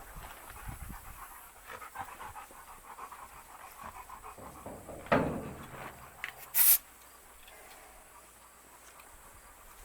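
A dog panting with quick, irregular breaths. About five seconds in there is a louder thud that fades over a second, and a second and a half later a short, sharp burst of hiss.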